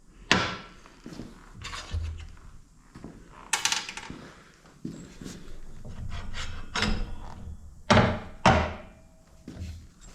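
A series of knocks and clatters from tools and parts being picked up, handled and set down on a workbench, about six in all, with the two loudest close together near the end.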